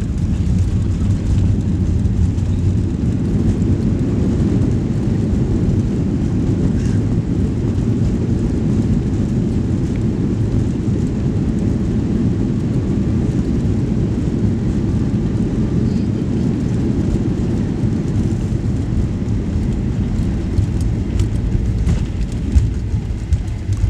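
Cabin noise of a Boeing 737 Next Generation rolling out on the runway after touchdown, spoilers raised: a loud, steady low rumble from the engines and the wheels on the wet runway.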